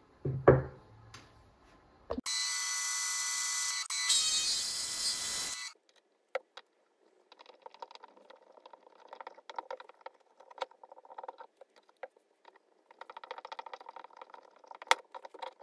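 A sharp knock, then an electric drill running with a steady high whine in two stretches of about three seconds in all, stopping abruptly. After a pause, a hand tap turned in a tap wrench cuts threads in a small metal part held in a vise: faint, irregular scraping and clicking.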